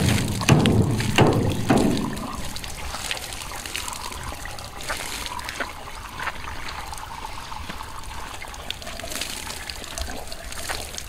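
Water poured from a bucket into a steel drum, splashing and spilling over its sides while the drum of a homemade non-electric water pump is filled. The first couple of seconds are louder and splashier, then it settles into a steadier trickling pour.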